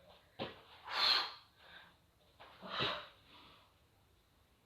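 A woman breathing hard through the mouth during a strenuous plank-press exercise: about three forceful exhales in the first three seconds, the loudest about a second in.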